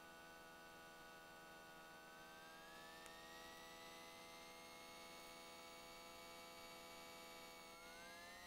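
Near silence: a faint, steady hum of the Beechcraft Baron 58's engines, heard as a stack of thin tones as if picked up through the headset intercom. One tone rises in pitch about two seconds in, and another near the end, as the engine speed comes up while taxiing.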